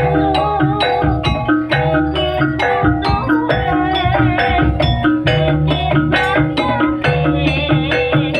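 Jaranan dance accompaniment music: a steady beat of sharp, pitched, mallet-like notes carrying a melody over a sustained low bass.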